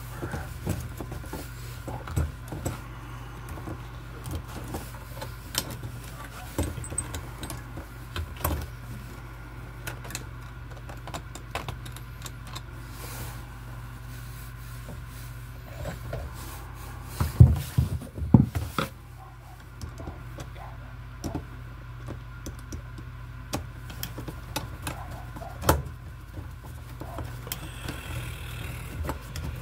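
Scattered clicks and light knocks of copper wires and hand tools worked against a metal junction box, over a steady low hum; a louder burst of knocks comes a little past halfway.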